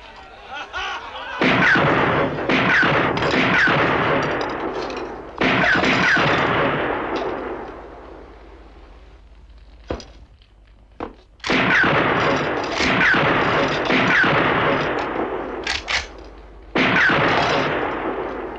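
Winchester lever-action rifle fired repeatedly in two volleys, each shot trailing off in a long echo with a ringing tone. A few faint clicks fall in the lull between the volleys.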